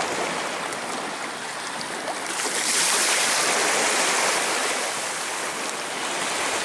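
Small waves washing on a sandy beach, a steady wash that gets louder and hissier about two seconds in.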